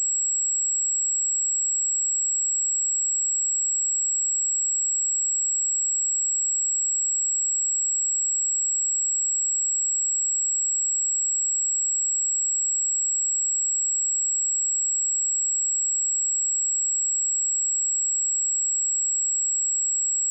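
Steady high-pitched 7685 Hz sine-wave test tone, one pure pitch held without change.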